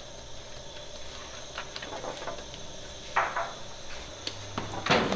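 Sangak oven work: light clicks and clinks of the baker's long metal peel against the oven mouth and its bed of hot pebbles, with two short scrapes, about three seconds in and a louder one near the end, over a steady low hum.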